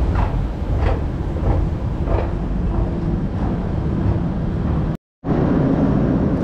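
Metro station noise: a steady low rumble with faint sounds in the background. It cuts out briefly about five seconds in.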